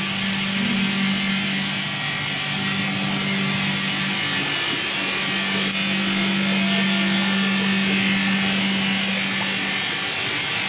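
LZ-300 multi-shaft mixer running with its disperser and agitator shafts churning liquid in the open tank. The motors give a steady hum and a thin high whine over the splashing of the stirred liquid.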